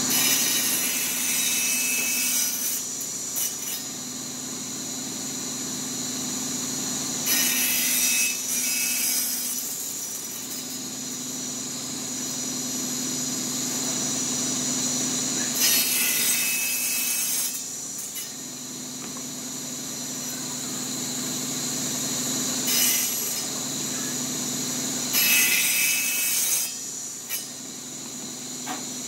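Table saw running with a steady high whine as its blade spins, cutting through a wood-and-epoxy-resin block about five times; each cut is a louder, harsher burst of sawing lasting a second or two.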